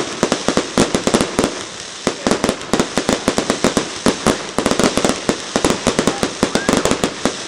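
Fireworks display: rapid, overlapping bangs and crackles, several every second, over a steady background of rumbling echo.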